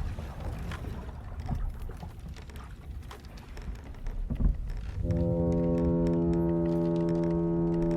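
Wooden sailing ship creaking and knocking over a low rumble of sea. About five seconds in, a ship's horn sounds one long, steady blast, the loudest sound here.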